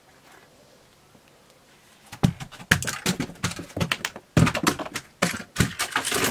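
A Lego Trevi Fountain model tumbling down carpeted stairs. Starting about two seconds in, there is a rapid, irregular clatter of plastic bricks knocking against the steps as pieces break off.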